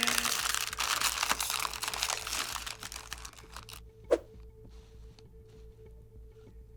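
Snack bag crinkling and crackling as it is handled and opened, a dense rustle of small clicks for about four seconds, then one sharp click.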